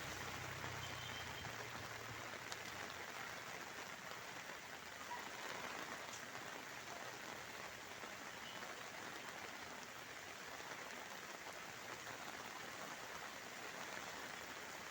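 Steady rain falling, a continuous hiss of drops on surfaces. A faint low hum sounds for the first two seconds.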